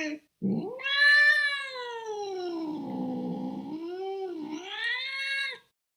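Cat yowling: one long drawn-out caterwaul of about five seconds, its pitch rising at first, sagging in the middle and rising again before it cuts off.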